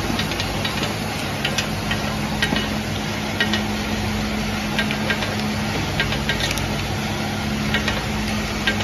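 Automatic cork cap assembly machine running: a steady low mechanical hum with irregular light clicks and clatter several times a second.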